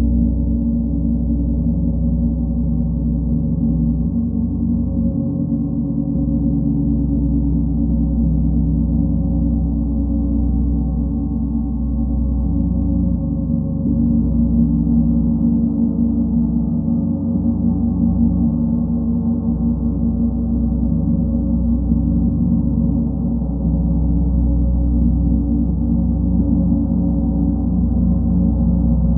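Large gong rolled continuously with two soft-headed mallets, building a steady, deep, sustained drone. The rich overtones stay low and dark, and no single strike stands out from the wash.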